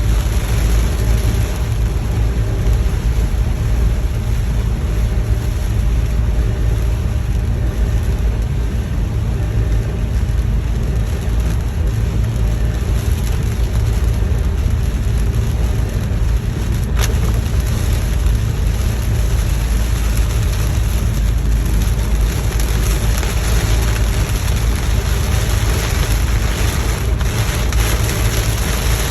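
Car driving through heavy rain: a steady low rumble of engine and tyres under an even hiss of rain. A single sharp click about halfway through.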